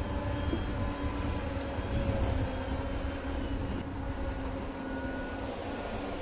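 A heavy engine running steadily: a low rumble with a faint steady hum over it.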